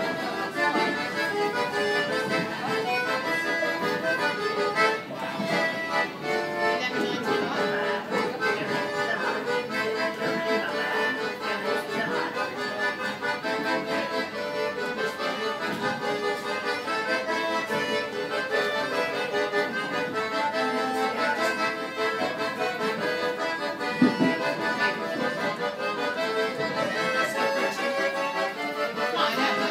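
Accordion playing a tune throughout, with held chords under a moving melody, heard down the length of a train carriage.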